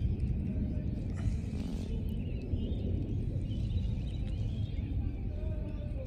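Wind buffeting the microphone, a steady low rumble, with faint bird calls in the background.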